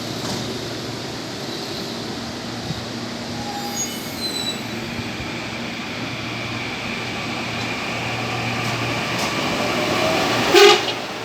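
Train pulling away with a steady low rumble that grows louder, a few faint high squeals about four seconds in, and one short horn blast near the end.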